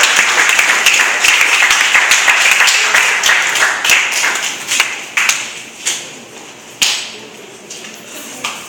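Audience applauding: dense clapping that thins out about five seconds in, trailing off to a few scattered claps.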